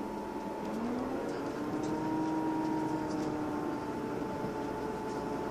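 Inside a Class 158 diesel multiple unit running at speed: a steady engine and transmission drone over wheel-on-rail rumble. About a second in, the drone rises in pitch and holds for a couple of seconds before easing back.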